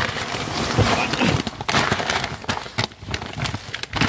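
Plastic bags, plastic packaging and cardboard boxes rustling and crinkling as they are pulled about by hand, with many sharp crackles and knocks throughout.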